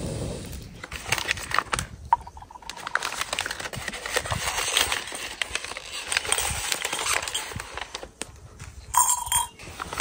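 Light clinks of a small tea glass and rustling of paper napkins and plastic bags being handled, in a run of short sharp clicks and crinkles. A brief pitched sound comes near the end.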